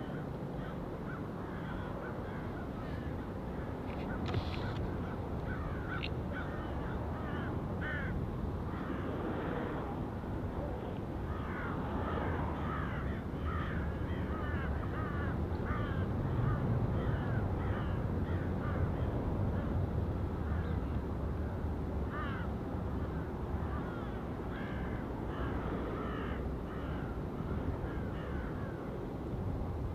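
Many short, harsh bird calls repeated over and over, heard over a steady low rumble that swells a little about halfway through.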